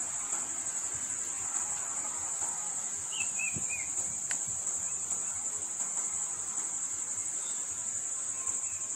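Insects shrilling in one continuous, steady high-pitched drone, with a brief chirp about three seconds in.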